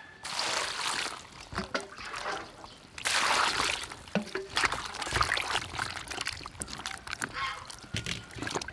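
Water pouring into a steel bowl of vegetables, loudest about three seconds in, then a hand swishing and sloshing the vegetables in the water to wash them, with many small splashes and knocks of vegetables against the bowl.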